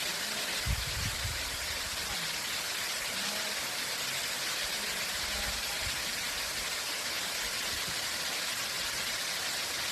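Dodouzen waterfall's water falling and splashing in a steady, even hiss, with a brief low bump about a second in.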